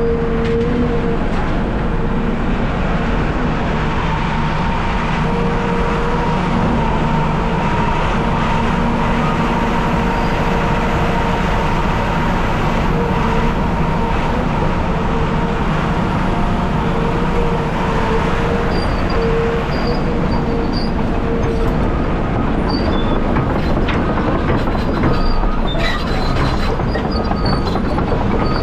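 CAT 740B articulated haul truck heard from inside its cab: the diesel engine and drivetrain running steadily with a heavy rumble and a wavering mechanical whine.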